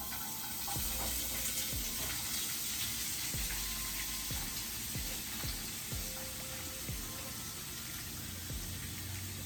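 Cabbage sizzling in hot oil in a pan: a steady frying hiss that starts abruptly as the cabbage goes in.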